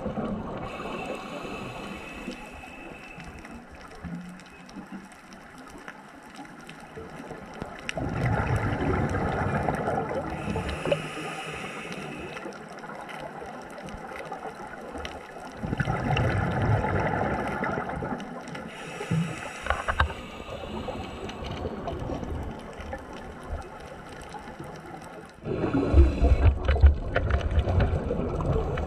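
Muffled underwater water noise and gurgling around a camera carried by a swimmer, swelling louder about 8, 16 and 26 seconds in.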